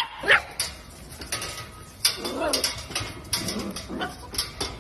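Beagle puppies yelping and barking: a sharp rising yelp right at the start and a few barks about two seconds in, over many small clicks and taps.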